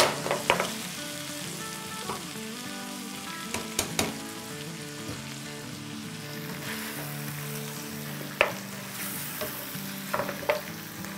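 Mutton pieces sizzling in hot oil with ginger-garlic-chilli paste and whole spices as they are added to a frying pan and stirred, with a few sharp knocks of utensils against the pan.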